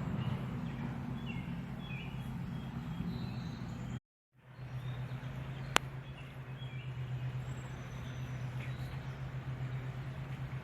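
Outdoor ambience with a steady low hum and a few short bird chirps in the first three seconds. The sound drops out completely for a moment about four seconds in, and a single sharp click follows a little later.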